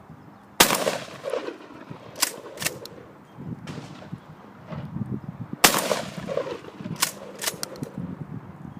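Gunshots at a shooting range: two loud sharp shots about five seconds apart, each followed by a brief echo, with several fainter shots in between.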